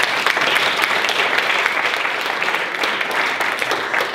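Audience applauding, a dense steady patter of many people clapping, cut off abruptly at the end.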